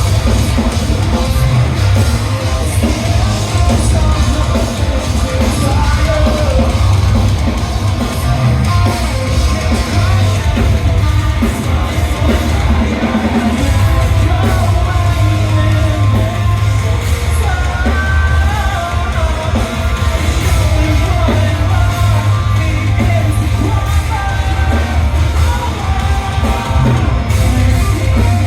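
Live band playing loud, heavy rock music with yelled singing.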